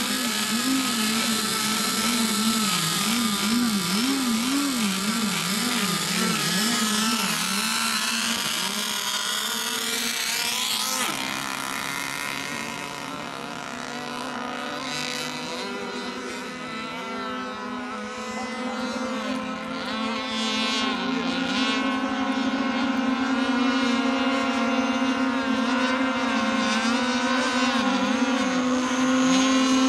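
Engines of several radio-controlled racing boats running flat out as they race. Their pitch wavers up and down through the first several seconds, then holds steadier; the sound fades a little midway and grows again toward the end.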